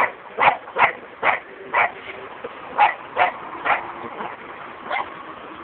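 A dog barking in short, sharp yips: about ten barks, quick at first, then coming further apart after about two seconds.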